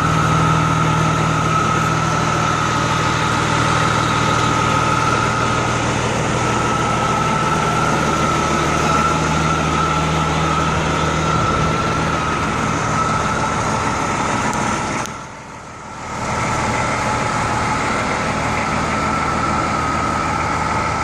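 M35A2 deuce-and-a-half's turbocharged multifuel inline-six idling, a steady high turbo whistle over the engine's low running. The whole sound dips away for about a second a little past the middle, then comes back.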